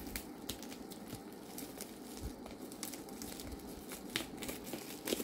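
Plastic parcel wrapping crinkling and rustling as fingers pick at its taped edges and scissors cut into it, with scattered small clicks.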